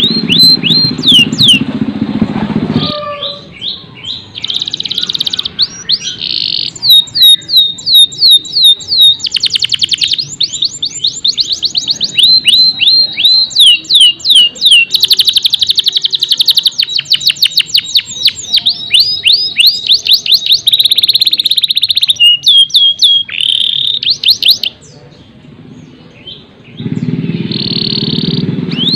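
Domestic canary singing: fast trills of repeated high, down-slurred notes and rolling phrases, broken by short pauses and a longer break a little before the end. A low steady background sound lies under the song at the start and returns near the end.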